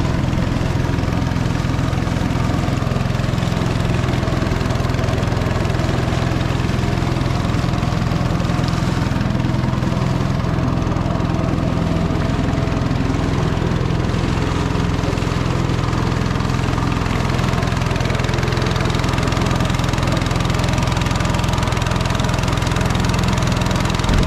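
A small boat's gasoline motor running steadily at an even speed.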